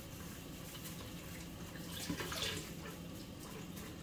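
Hot water running from a tap, a steady faint hiss with a low steady hum beneath it.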